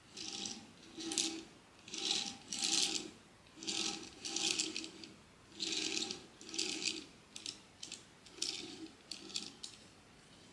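Small plastic light-up figure being twisted round by hand on a hard tabletop, its base giving about a dozen short clicking, grinding bursts, each under a second long, with brief pauses between.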